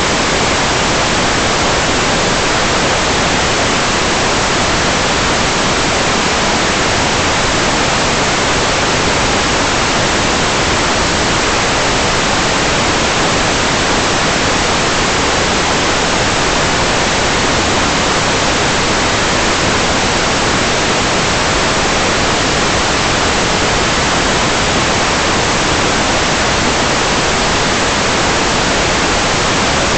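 Loud, even hiss of static noise that never changes, with no other sound in it.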